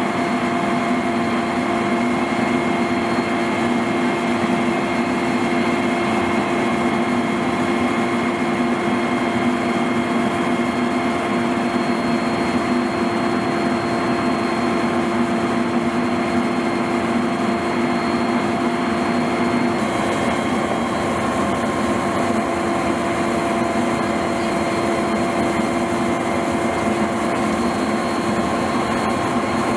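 A steady engine running, a constant hum over a noisy rush. The mix of hum tones changes slightly about twenty seconds in.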